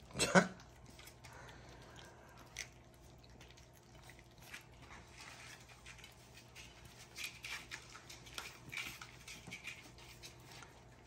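A litter of three-week-old puppies lapping and chewing soft food from a plate, a faint run of small wet clicks and smacks. One short, loud puppy yelp just after it begins.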